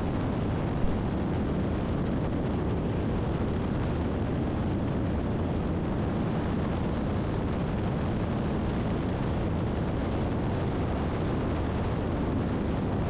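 Steady drone of a Christen Eagle biplane's engine and propeller with rushing air, heard from inside the cockpit, holding an even level throughout.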